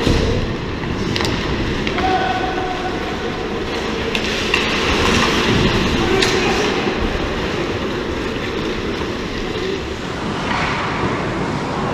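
Ice hockey rink sound during play: a steady rumbling arena noise with skates scraping the ice, broken by a few sharp clacks of sticks and puck.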